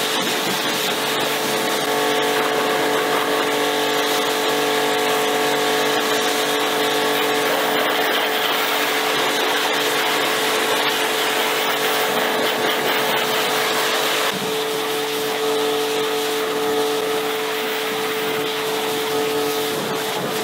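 Pressure washer running steadily, its motor and pump humming under the hiss of the water jet rinsing the car's paintwork. The hum shifts slightly and drops a little about two-thirds of the way through.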